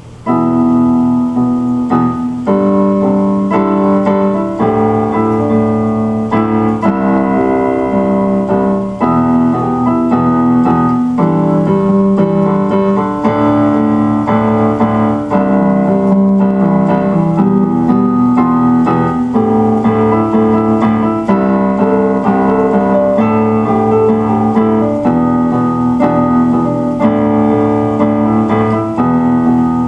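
Outro music: steady, loud piano or electric-piano playing held chords that change every second or two.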